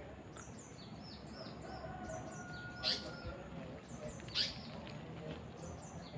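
Birds chirping: a rapid run of short, high, falling notes, with a louder sharp call about three seconds in and another at about four and a half seconds.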